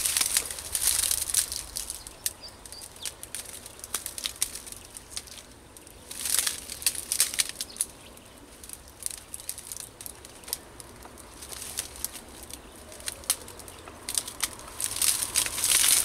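Tall grass and reeds rustling and crackling as someone pushes through and crouches among them. There are three louder bursts, near the start, around six seconds in and near the end, with scattered snaps of stems in between.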